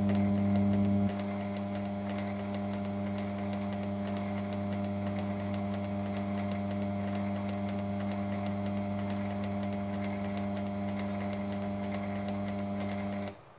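Chinese mini lathe running with its chuck turning, a steady motor hum. The hum drops in level about a second in and cuts off suddenly near the end.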